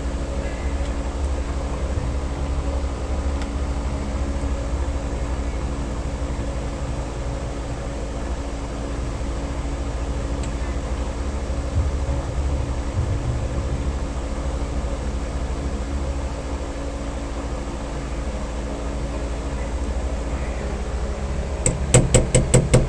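Steady low mechanical hum and rumble, with a quick run of about eight sharp clicks near the end.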